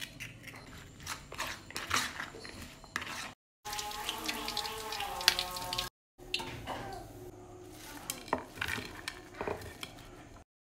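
Kitchen cooking sounds cut together: corn kernels and flour being mixed by hand in a plastic bowl, with scattered clicks and rustling. After a brief cut to silence comes a louder stretch of crackling and clatter, then, after another cut, light clinks and knocks as fried corn fritters are handled with a wire strainer.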